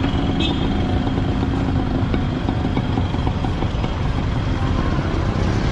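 Street traffic with a motorcycle engine running close by, a steady mechanical rumble.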